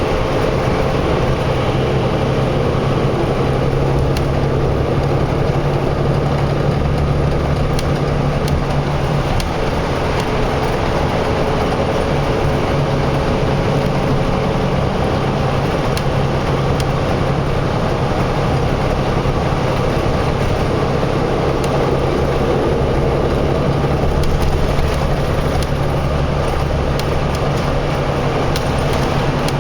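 Steady motor-vehicle engine and road noise, with a low engine hum that drops away about nine seconds in and comes back a few seconds later.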